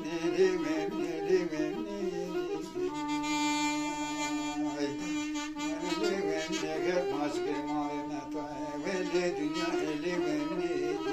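A short reed pipe of Turkish folk music playing an ornamented melody over a steady held drone note.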